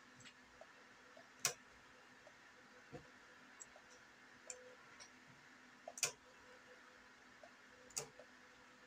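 Computer mouse clicking: three sharp clicks, one about a second and a half in and two more about two seconds apart later on, with fainter ticks in between.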